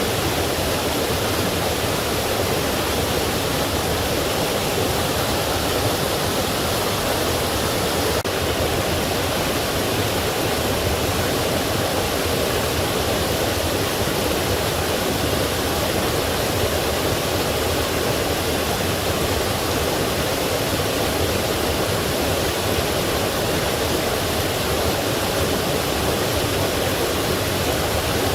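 Forest stream and waterfall flowing, a steady even rush of water.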